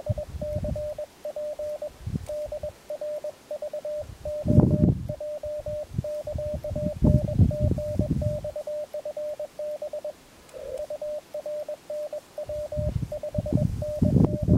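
Morse code (CW) signals from a portable shortwave transceiver's speaker: a single steady tone keyed in dots and dashes, with a brief pause about ten seconds in. Intermittent low rumbles come and go underneath.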